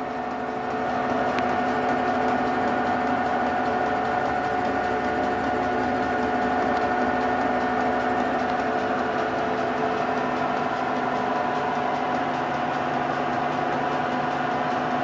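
Vertical milling machine running a face-milling cutter across the top of a metal part: a steady machine hum and whine with the noise of the cutter cutting metal, getting a little louder about a second in.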